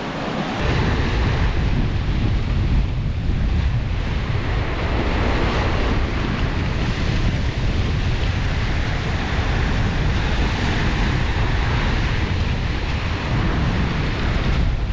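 Ocean waves washing in, with wind rumbling on the microphone from about half a second in.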